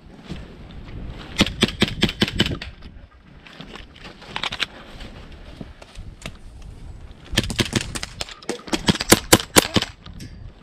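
Gas blowback airsoft pistols firing quick strings of shots: a string about a second and a half in, a few shots around four and a half seconds, and a longer, faster string from about seven seconds in.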